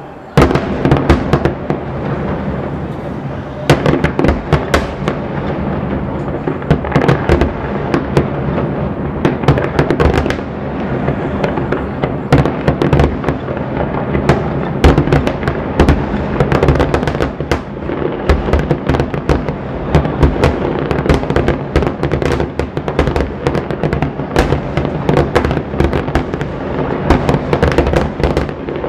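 Fireworks display: aerial shells bursting in a rapid, nearly continuous barrage of bangs, with several louder booms standing out.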